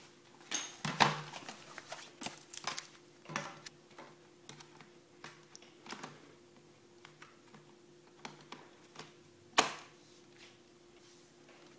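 Handling noise from a plastic netbook case: fingers rubbing and tapping on its underside, with scattered small clicks and one sharper knock near the end, over a faint steady hum.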